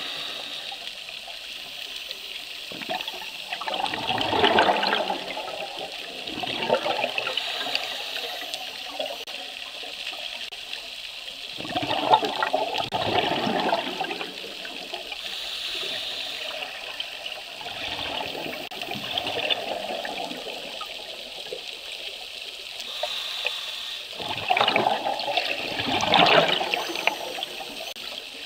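Scuba diver's regulator exhaust underwater: exhaled bubbles rush and gurgle in three surges a few seconds long, about every ten seconds, with a quieter hiss between breaths.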